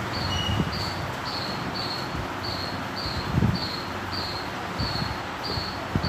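A steady series of short high-pitched chirps, a little under two a second, over a constant hiss, with a few soft knocks as the plastic air filter box is handled and wiped with a cloth.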